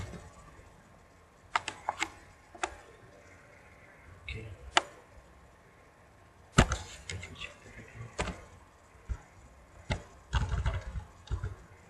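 Computer keyboard keystrokes: single taps and short runs of taps with pauses between them, a quick cluster near the end with some duller thuds.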